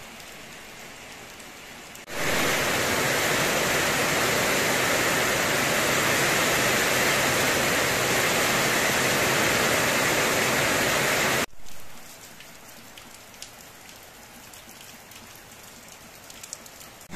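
Heavy rain pouring down, a steady hiss. It jumps much louder about two seconds in and drops back just as suddenly past the middle.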